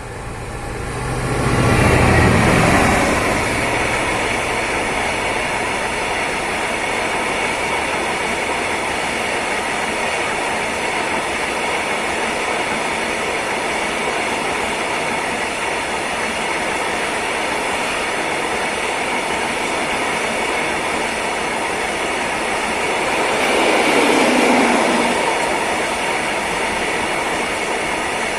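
Train passing close by on the line: loudest as the front goes past about two seconds in, then a steady rolling noise of wheels on rail as the cars go by, swelling again with a falling pitch near the end.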